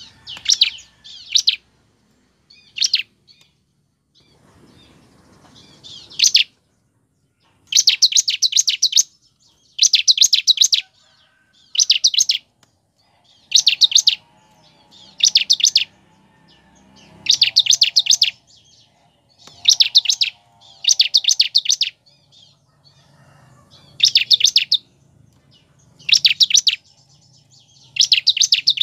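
Bar-winged prinia (ciblek) calling: loud, high, rapid trills of ticking notes in bursts about a second long. A few short scattered calls come first, then from about eight seconds in the bursts repeat steadily about every two seconds.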